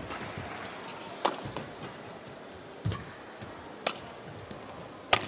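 Badminton rackets striking the shuttlecock in a rally: four sharp hits about one to one and a half seconds apart, the last the loudest, over steady arena background noise.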